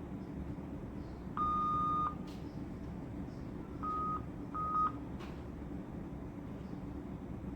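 ICU medical equipment alarm beeping: one long tone, then about two seconds later two short beeps at the same pitch, over a steady low hum.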